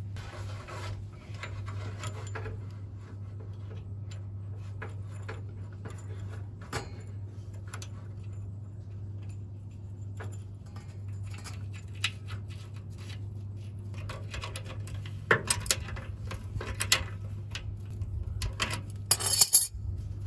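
Speedometer cable's knurled nut being screwed by hand onto the speedo bullet on a TH350 transmission: small scrapes and rubbing with scattered light clicks, and a few sharper clatters near the end, over a steady low hum.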